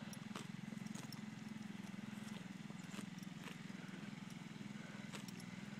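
Faint, irregular hoofbeats of a pinto horse cantering on grass, over a steady low hum.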